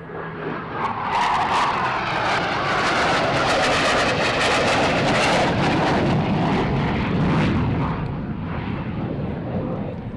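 Twin-engined F/A-18 Hornet jet passing by. The jet noise builds over the first second or so, holds loud with a crackle while its pitch slides downward, and then fades from about eight seconds in.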